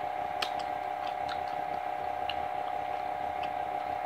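A steady hum, with a few short, faint clicks of eating: chewing and fingers pulling apart a fried chicken thigh.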